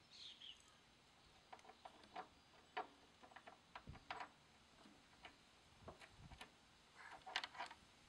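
Faint, scattered clicks and light taps of small parts being handled as a pinion gear and ratchet key are fitted onto a lawn mower's rear axle, with two dull low thumps in the middle and a quick run of clicks near the end. A short high chirp sounds right at the start.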